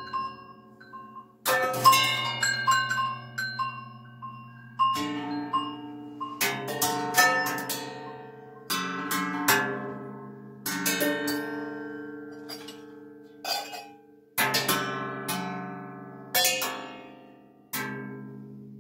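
Improvised metal percussion: tin cans, pots and drums struck at irregular intervals, each hit ringing out with pitched overtones and fading away. Under the strikes, steady low pitched tones are held and shift every few seconds, the room sound fed back through a spring reverb unit.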